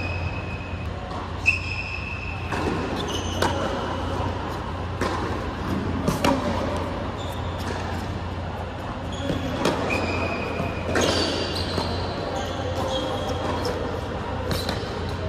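Tennis rally on an indoor hard court: rackets strike the ball and the ball bounces, with sharp pops about every one to two seconds. Short squeaks from sneakers on the court surface come between the hits, over a steady low hum in the large hall.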